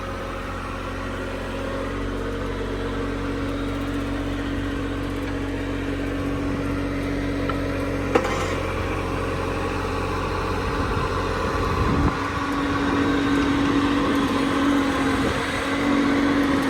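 Yanmar diesel engine of a mini-excavator running steadily, with a single sharp click about eight seconds in. About twelve seconds in, the engine note shifts and a steadier, higher hum takes over.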